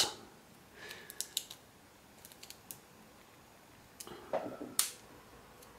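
Faint, scattered metal clicks and scrapes of a small screwdriver prying a tiny bearing out of an RC servo's metal output gear, with a couple of sharper clicks about four seconds in.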